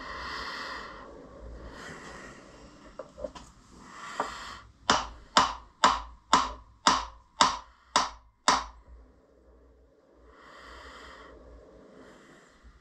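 A run of eight sharp knocks with a short metallic ring, about two a second, from the milling machine table and vise as the vise is moved under a dial test indicator during tramming. Soft breathing comes before and after.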